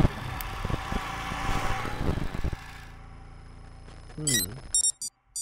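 Sound-design whoosh of rushing noise from a music-video intro, settling into a low steady hum, then a few short electronic beeps and glitchy blips near the end.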